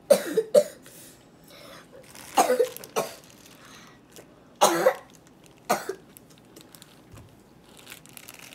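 A child coughing, about six short coughs spread over the first six seconds, with quiet room noise between them.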